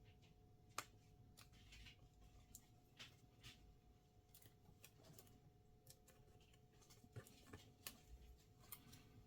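Faint, scattered small clicks and taps of laptop internals being handled: Wi-Fi antenna cables pressed onto their connectors and tucked into their guides, with one sharper click just under a second in and a few more near the end, over a faint steady hum.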